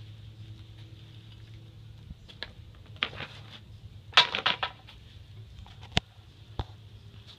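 A paint roller on an extension pole clattering against its paint tray as it is set down, with a burst of rattles and knocks about four seconds in and a couple of sharp clicks after. A faint low hum runs underneath.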